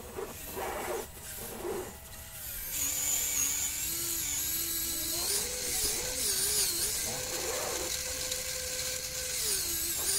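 Electric motor and geartrain of an Axial SCX10 Jeep RC crawler whining as it climbs out of a rut, the pitch rising and falling with the throttle. The whine starts about two and a half seconds in, after a few light clicks.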